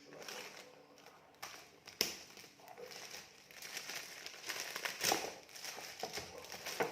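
Gift wrapping being crinkled and pulled open by hand: irregular rustling with a few sharp snaps, the sharpest about two seconds in.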